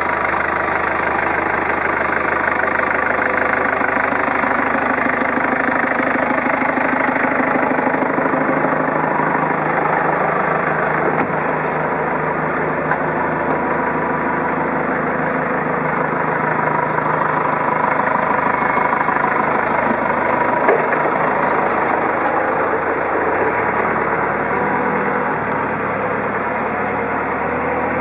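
Diesel engine of a Manitou rough-terrain forklift idling steadily.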